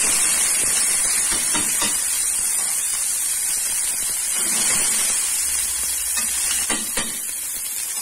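Chopped onion sizzling steadily in a hot stainless-steel frying pan, in the fat and browned bits left from searing meatballs. Two short clicks come near the end.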